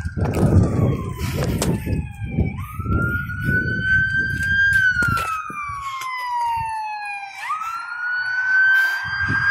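Emergency vehicle siren in a slow wail, its pitch sliding down and then back up in cycles of about five seconds. Rhythmic low thumps sound under it through the first half.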